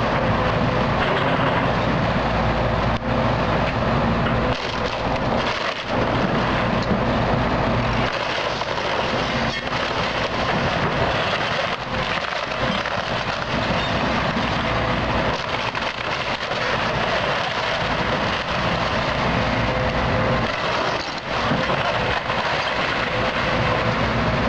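Case tracked excavator's diesel engine running under load as its bucket tears into a wood-frame house, with wood and siding cracking and splintering and sharp cracks now and then.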